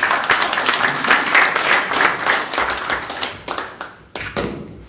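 Audience applauding, many hands clapping together, dying away about three and a half seconds in.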